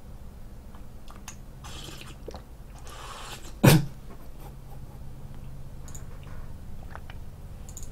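Person drinking pickled radish brine straight from a plastic tub: soft swallowing with two short slurps about two and three seconds in, and one sharp knock just under four seconds in, the loudest sound.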